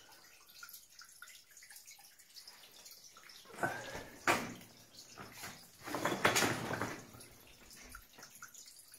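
Dripping water in an old lead-mine passage, with two louder splashing sounds about four and six seconds in.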